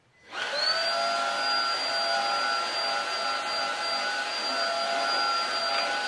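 Dibea F20 MAX cordless stick vacuum cleaner switched on: its motor spins up with a quickly rising whine about a third of a second in, then runs steadily with a high whine and airflow noise while its brush head is worked over carpet.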